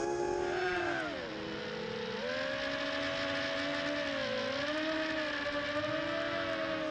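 FPV quadcopter's electric motors whining, the pitch shifting with the throttle: it dips about a second in, climbs back about two seconds in, then wavers.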